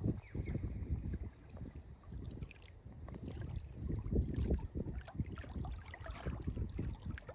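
Wind gusting against the microphone: a low, uneven rumble that swells and drops every second or so, over a thin steady high hiss.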